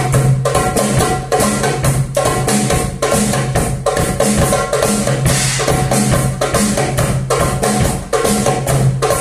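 Ensemble of hand drums playing a fast, dense rhythm together, with rapid strikes and a steady low tone held underneath.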